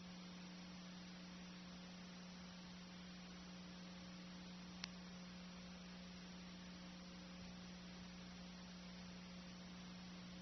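Near silence: a steady low electrical hum with faint hiss, and one brief click about halfway through.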